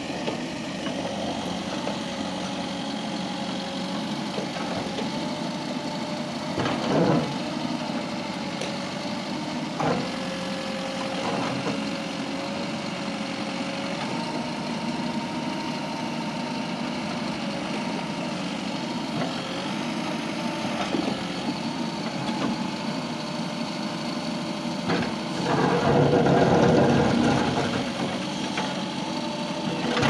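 Mahindra SX90 backhoe loader's diesel engine running under load, its note stepping up and down as the backhoe arm works. The bucket breaks up a brick wall, with sharp knocks about seven and ten seconds in and a louder spell of crunching, clattering brick near the end.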